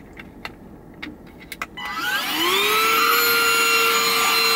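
A few sharp clicks, then a Bissell mini cordless handheld vacuum switches on about two seconds in, its motor winding up in pitch and settling into a steady whine.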